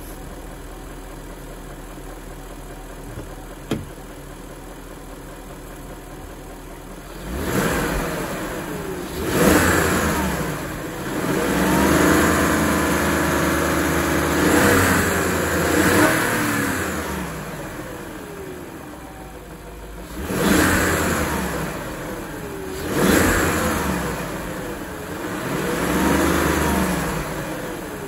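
BMW 740i E38's 4.4-litre V8 idling steadily, then revved repeatedly: a couple of quick blips, a longer held rev, and then three more blips, each rising and falling back to idle. A single sharp click is heard during the idle, before the revving starts.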